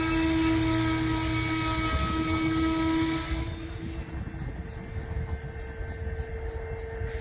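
Freight cars rolling slowly past, a lumber-loaded centerbeam flatcar among them, with a low rumble and a steady metallic squeal from the steel wheels. About three and a half seconds in the squeal stops and the sound drops. A quieter squeal at another pitch carries on.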